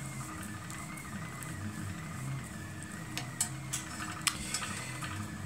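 Light clicks and taps of small parts and wire being handled, a few of them about three to four and a half seconds in, over a steady faint hum of room tone.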